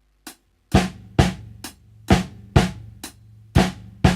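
Drum kit playing a Swiss Army triplet: a lighter left-hand snare stroke, then a right-hand flam and another right-hand stroke on the snare, each doubled with the bass drum, in a steady repeating pattern. A faint click comes just before the playing starts, under a second in.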